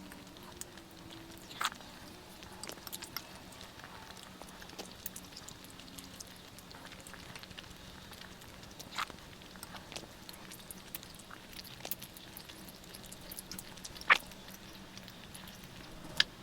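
Close-miked eating sounds of Jordanian mansaf being chewed: soft, wet mouth clicks and smacks scattered throughout, with a few sharper smacks, about four in all.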